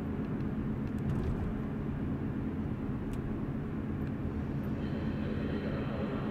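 A car running, heard from inside the cabin: a steady low rumble with a low hum.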